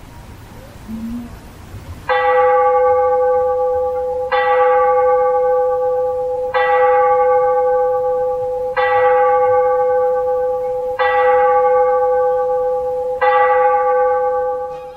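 Tower bell of a castle tolling six times on the same note, one strike about every two seconds, each left ringing into the next.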